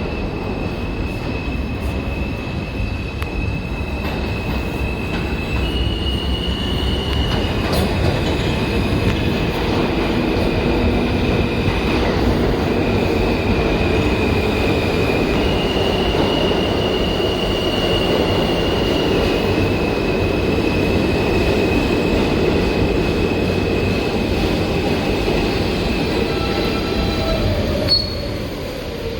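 New York City Subway R160 train, a mixed Alstom and Siemens set, running on the track with steady rumbling and a high-pitched squealing tone that steps between two pitches. Near the end there is a click and the tones begin to slide in pitch.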